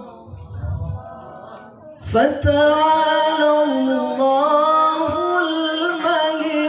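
Male qari reciting the Qur'an in melodic tilawah style into a microphone: after a short pause, a long ornamented note with a wavering held pitch begins about two seconds in.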